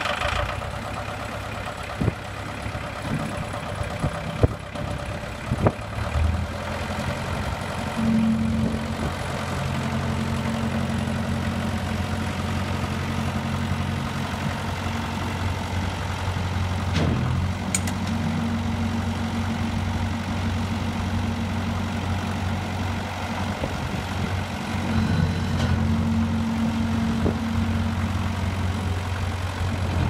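Owatonna Mustang 1700 skid-steer loader's engine running just after start-up, with a few sharp knocks in the first few seconds. Its note steps up and runs steadier and stronger from about six seconds in, as the loader is worked.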